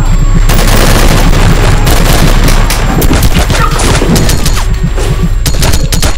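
Rapid automatic gunfire from assault rifles, many shots in quick succession, starting about half a second in and stopping near the end, over a low throbbing bass.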